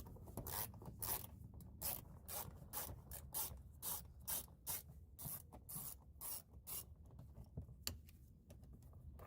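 Socket ratchet on an extension backing out a 7 mm door-panel screw. It makes a faint, even run of short ratcheting strokes, about two a second, that stops about seven seconds in, followed by a single sharp click.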